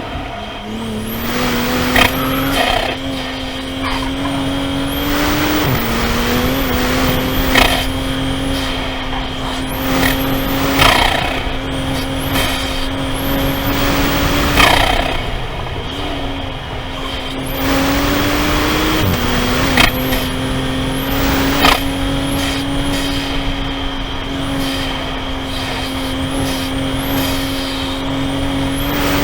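Modified Toyota GR Supra (A90) being driven hard on a wet track. The engine note climbs slowly through long pulls and drops sharply at upshifts, twice, over a steady hiss of tyres and spray, with a few sharp knocks.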